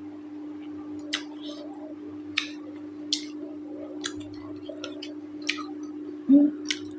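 Close-up eating sounds: wet mouth clicks and smacks while chewing mutton curry and rice, about one a second, over a steady low hum. A dull thump near the end.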